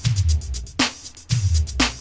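Electronic old-school funk beat: heavy drum-machine bass drum, quick hi-hat ticks, and a short falling synth stab about once a second. The bass drops out briefly about a second in, then comes back.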